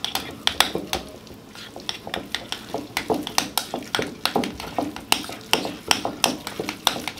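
A spoon stirring ricotta and shredded mozzarella in a glass mixing bowl, clinking against the glass in sharp, irregular taps, a few a second, with a short lull about a second in.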